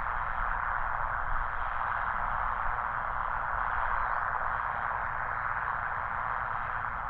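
Steady hiss of analog radio static from the disaster-prevention system's outdoor TOA horn loudspeakers: the line is open and the speakers are live just before the chime plays.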